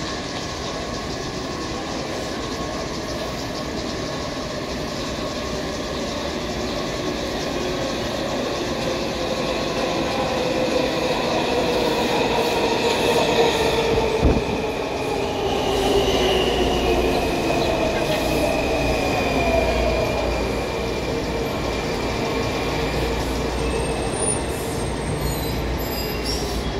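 Washington Metrorail train pulling into an underground station. The rumble builds to its loudest about halfway through as the train arrives, and a whine falls steadily in pitch while the train brakes along the platform.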